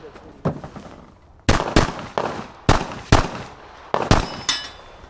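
A string of about eight semi-automatic pistol shots fired in quick succession at targets during a timed practical-shooting stage, starting about a second and a half in, some shots coming in fast pairs.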